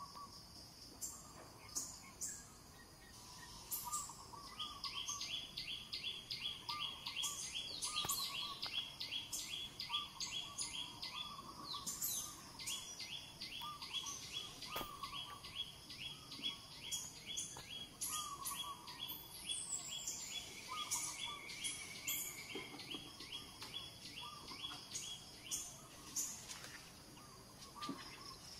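Birds calling outdoors: a fast run of high, even chirps, several a second, breaks off briefly near the middle, over shorter, lower chirps about once a second.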